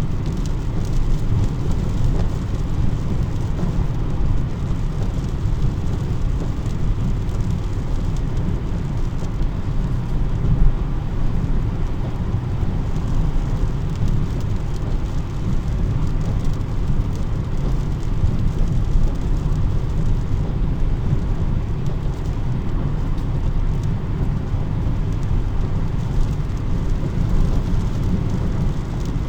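Steady rain over a constant low rumble.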